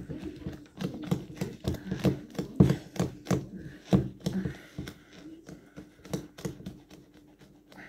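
Plastic stirrer clicking and scraping against shaved ice in a plastic cup of halo-halo as it is stirred: quick irregular clicks, several a second, growing sparser and softer in the second half.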